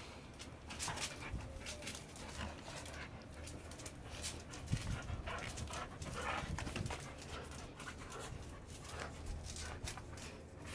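Pit bull dogs making irregular short breathy sounds, with a single sharp click about five seconds in.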